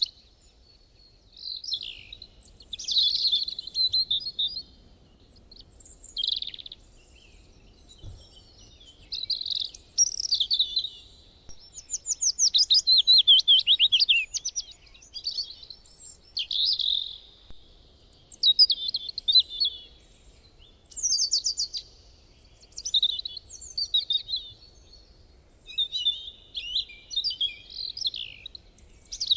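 Songbird singing: high-pitched chirps and quick trills in separate bursts of a second or two, with short pauses between them.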